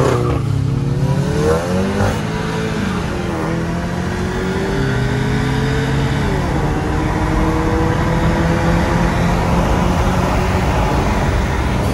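A Volkswagen car's engine at full throttle from a standing start, heard from inside the cabin. The pitch climbs steadily in each gear and drops sharply at three quick upshifts, about two, three and a half and six and a half seconds in. The climb grows slower in each higher gear.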